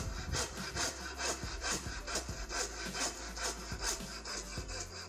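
Japanese hand saw cutting into a squared timber with quick, even strokes, about four a second.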